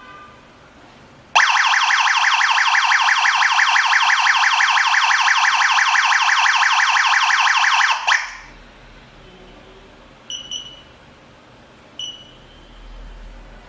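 Home security alarm system's siren sounding, loud with a fast warbling pulse, for about six and a half seconds before cutting off suddenly. Three short high beeps follow, two close together and then one more.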